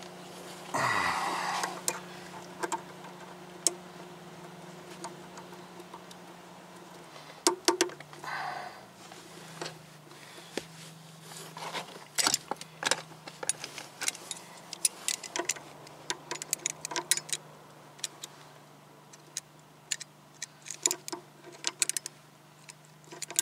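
Irregular metallic clicks and clinks of a battery cable clamp and its repair-kit pieces being handled and fitted onto the battery's negative terminal post, getting denser near the end as vice-grip pliers work the clamp. A short rustle about a second in, and a faint steady low hum underneath.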